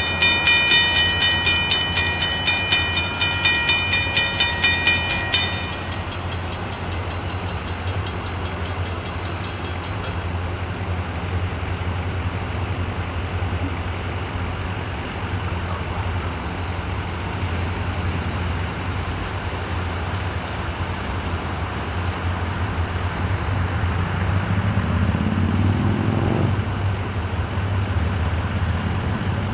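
Railroad grade-crossing warning bell ringing rapidly, about three or four strokes a second, then stopping suddenly after about five seconds as the gate arms settle down. After that, a steady low engine rumble of an idling train holds, with an engine tone rising near the end and cutting off abruptly.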